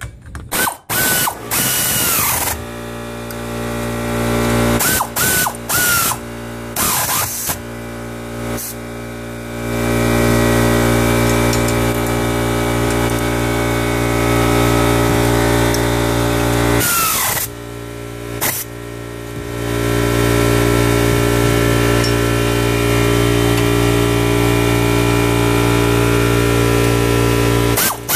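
Craftsman pneumatic air ratchet running down the 9/16 nuts on motor-mount bolts. It runs in several short bursts, each spinning up with a rising whine, over a steady mechanical drone.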